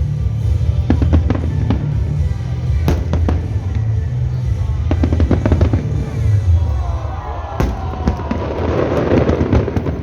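Aerial fireworks bursting in quick succession: continuous deep booms with sharp cracks. From about seven seconds in, a mass of whistling and crackling joins them.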